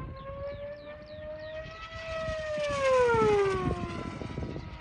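Typhoon RC speed plane, electric on a 10S battery, screaming past at high speed. Its motor-and-propeller whine climbs slightly, then drops steadily in pitch as it flies by, with a rushing swell of air noise at its loudest about three seconds in.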